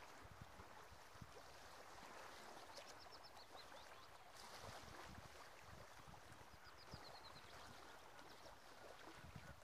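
Faint seashore ambience: a soft, steady hiss of water lapping at the shore, with a small songbird twice giving a short run of high notes that falls in pitch, about three and seven seconds in.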